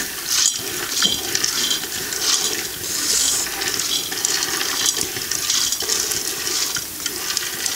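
Soaked chickpeas and other pulses poured from a metal bowl into a pot of hot fat and frying dried meat, sizzling and hissing steadily as the wet grains hit the pan.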